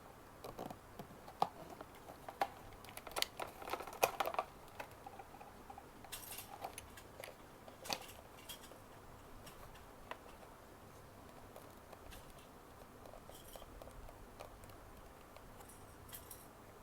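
Small plastic GoPro parts handled and fiddled with while being worked open: scattered light clicks and knocks, busiest in the first few seconds, sparser later.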